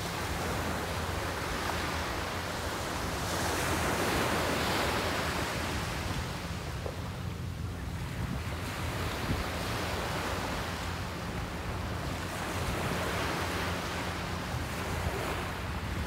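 Small, calm waves breaking and washing up a sandy beach, the surf hiss swelling and easing twice.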